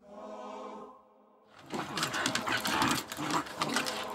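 A brief steady pitched tone for about a second, then a terrier-corgi cross and a cocker spaniel play-fighting, with rough, busy growling.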